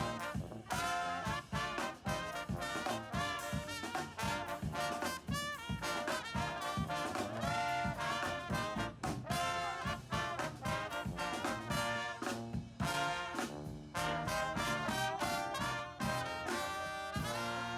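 Brass-led swing band playing, with trumpets and trombones over a steady drum beat, ending on a held chord near the end.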